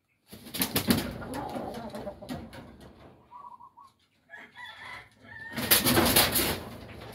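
Rooster pecking feed from a concrete bowl: a quick run of sharp beak taps, then short soft clucking calls around the middle, and a louder noisy rustle about three-quarters of the way through.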